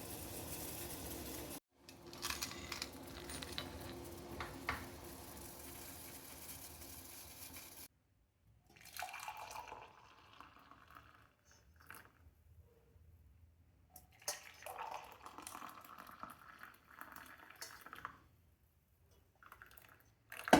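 Hot kadha (herbal decoction) being poured and splashing, in several separate stretches broken by abrupt cuts, with a few light clinks in the first part.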